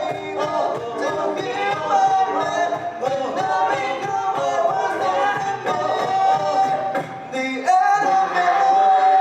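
An a cappella vocal group singing in harmony without words, ending on a held chord near the end.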